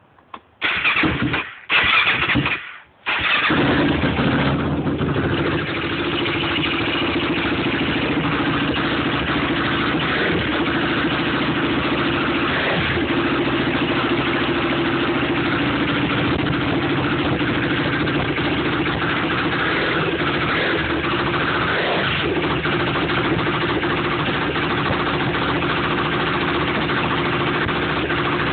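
Yamaha YFZ450 quad's single-cylinder four-stroke engine on its first start after a top-end rebuild: it fires briefly twice, then catches about three seconds in and settles into a steady idle.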